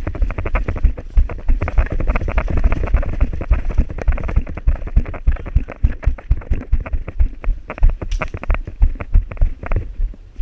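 Running footsteps with gear jostling on the body, heavy thuds coming about two to three times a second.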